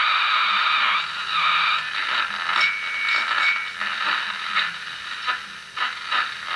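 Transistor AM clock radio's speaker giving out hiss and crackle as a knob on its board is turned, with a brief whistle about two and a half seconds in. The radio is working again after its capacitors were replaced.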